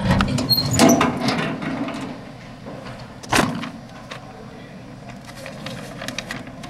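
Rustling and scattered clicks, then one sharp knock about three and a half seconds in, over faint room noise.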